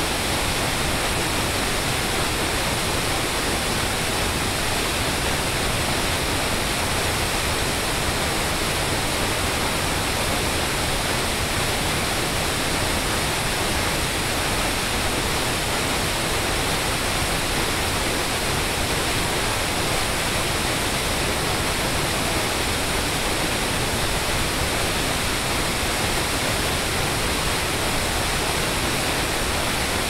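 Water pouring over a small creek waterfall, a steady, unbroken rush of noise with no change in level.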